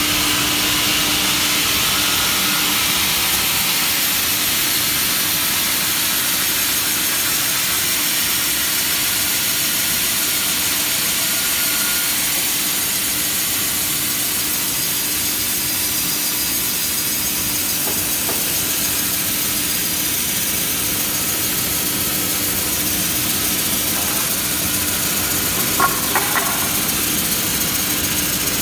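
Conveyor-fed wood resawing machine running and slicing a timber plank: a steady, loud mix of motor noise and saw hiss, with a low hum that fades in the first few seconds and a few sharp knocks near the end.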